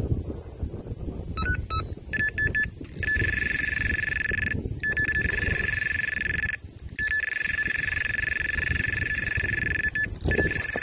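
Electronic carp bite alarm going off: a few quick beeps, then a high steady tone that runs almost without a break, with a few short gaps. This is the sign of a carp running and taking line. A low rumbling noise runs underneath.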